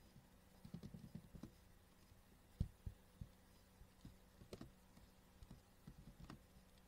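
Faint scattered clicks of a computer mouse and keyboard: a quick run of clicks about a second in, then single sharper clicks every second or so, over a faint steady low hum.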